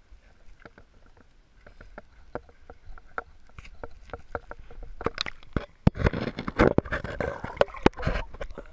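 Light clicks and knocks of handling. About five seconds in, loud splashing and sloshing water right at the microphone as it dips into the lake, lasting about three seconds.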